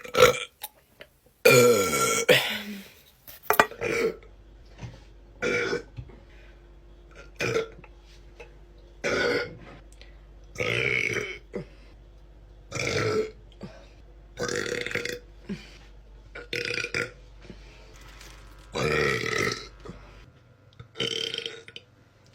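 A string of about a dozen burps from young women, one every second or two, most under a second long, with a couple of longer, drawn-out ones.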